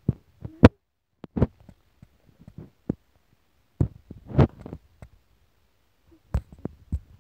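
Irregular soft thumps and clicks, about a dozen spread unevenly, with a faint low rumble between them.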